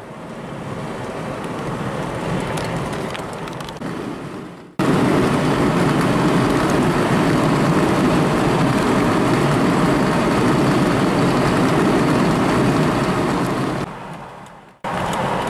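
Steady road and wind noise of a car driving at highway speed. The level jumps suddenly about five seconds in, dips near the end, then picks up again.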